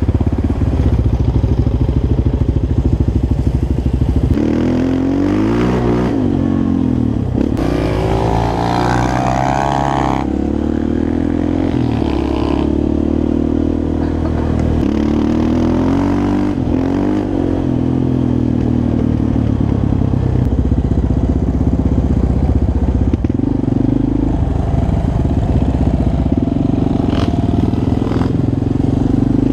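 Sport quad (ATV) engine running under load on a dirt track, its pitch rising and falling repeatedly as the rider opens and closes the throttle and changes gear.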